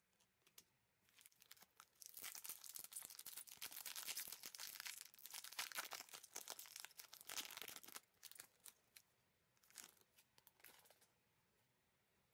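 Foil wrapper of an Epoch J.League trading card pack being torn open and crinkled: a dense crackling rustle for about six seconds, then a few short crinkles.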